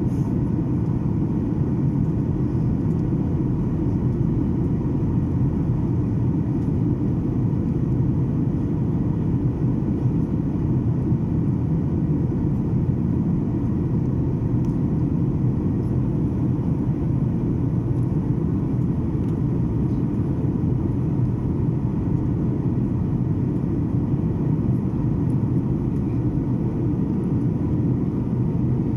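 Steady jet engine and airflow drone inside the passenger cabin of a Boeing 737 in flight, a deep constant rumble with a faint steady whine above it.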